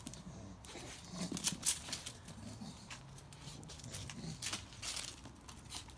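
Two Staffordshire bull terriers play-fighting on paving slabs: irregular scuffling, with claws clicking and scrabbling on the stone.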